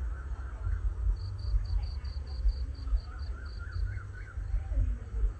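An insect chirping in a rapid high-pitched pulse of about five chirps a second, starting about a second in and fading out after a couple of seconds. Short wavering calls come and go in the middle, over a low uneven rumble.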